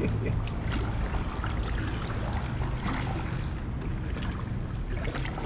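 Water lapping and dripping around a plastic kayak drifting in shallow river water, with scattered small splashes and ticks over a low steady rumble.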